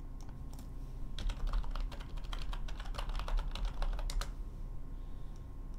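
Computer keyboard typing: a few scattered key taps, then a quick, dense run of keystrokes lasting about three seconds that stops short near the end.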